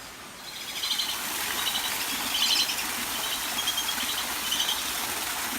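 A duck calling in short, rapid chattering bursts, repeated every second or so, over a steady rush of running water.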